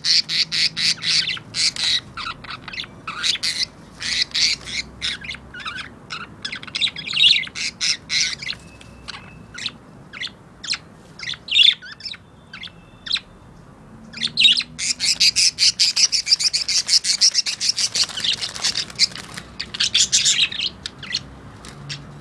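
Budgerigars calling in rapid strings of short, chattering calls as two of them scuffle over a hen. The calls come thick at first, thin out to scattered ones about nine seconds in, then come densely again for several seconds.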